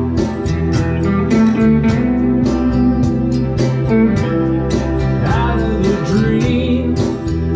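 Live band music: an acoustic guitar strummed in a steady rhythm, with a second guitar playing a lead line of bending notes over it.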